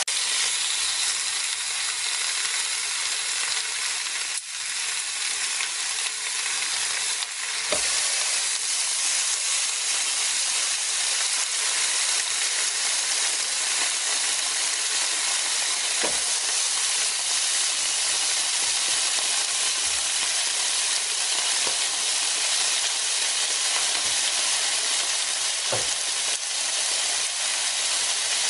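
Pork slices sizzling steadily on a round tabletop Korean BBQ grill plate: an even, high frying hiss, with a few faint clicks and knocks scattered through it.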